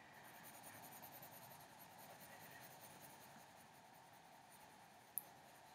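Faint scratching of a colored pencil shading on paper, fading out after about three seconds, then one small sharp click near the end.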